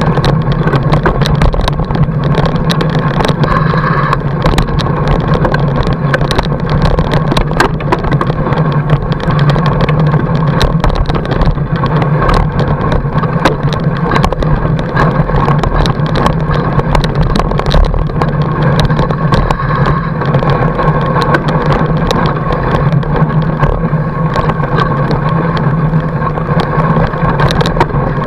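Fat bike riding over packed snow, heard through a camera mounted on the bike: a steady low drone of the wide tyres rolling, with constant small clicks and rattles.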